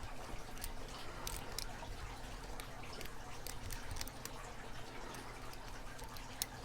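Faint, irregular small metallic clicks and scratches of a lock pick, mostly a snake rake, working the pins of an Abus 8345 series padlock under a tension wrench, with one sharper click near the end.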